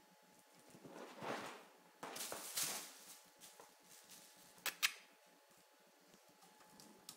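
A kitten pawing and nosing at a plastic mesh toy with tinsel: rustling and scraping, then two sharp clicks in quick succession about five seconds in.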